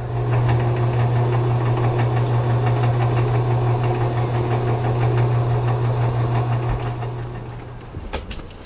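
Electric boat lift motor running with a steady low hum, winding the lift's cable drum, and fading out about eight seconds in.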